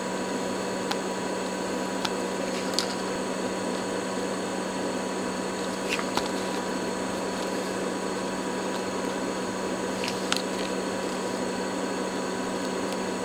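Steady fan-like hum with a low drone, broken by a few faint ticks.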